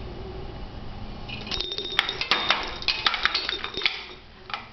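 Toy being shaken and pecked by a caique parrot: a flurry of sharp metallic clinks and jingling with a high ringing note. It starts about a second and a half in and dies down near the end.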